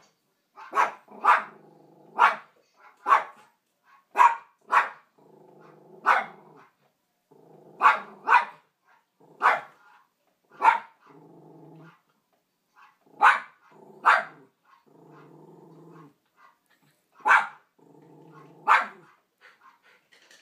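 Small poodle barking at the television in short sharp barks, often two close together, with low growls of about a second between them.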